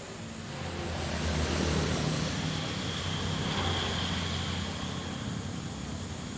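A passing engine: a low motor hum that swells over the first couple of seconds, then slowly fades, with a faint high whine in the middle.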